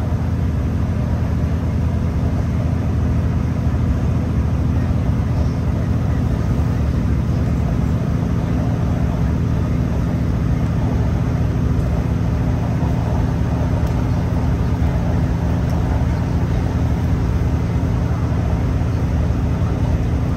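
Great Western Railway Class 165 diesel multiple unit running at speed, heard from inside the carriage: a loud, steady, even drone with a low hum that holds throughout.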